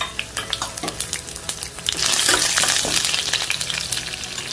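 Tempering sizzling in hot oil in a steel kadai: mustard seeds, broken urad dal, dried red chillies and freshly added crushed garlic frying, with scattered sharp crackles and pops, while the pan is stirred. The sizzle grows louder about two seconds in.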